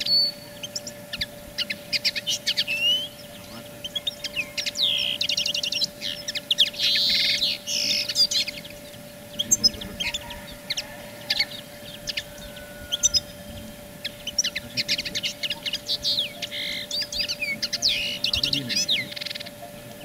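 Small songbirds chirping and singing in quick, repeated trills and chirps, one burst after another, over a faint steady hum.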